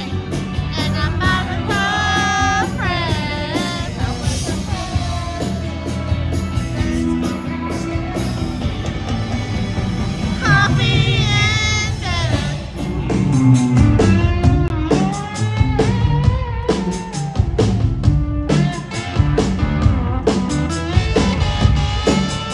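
Live rock band playing a song, heard from the audience: electric guitars, bass, drums and keyboards, with a sung melody in the first half and a more instrumental stretch with sliding melodic lines in the second half.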